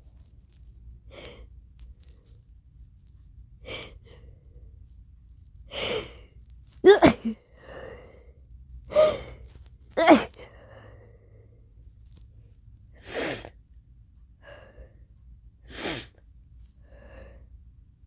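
A person sneezing over and over during an allergy attack: about ten short, sharp bursts a second or two apart. The loudest, most voiced sneezes come about seven and ten seconds in, with fainter ones before and after.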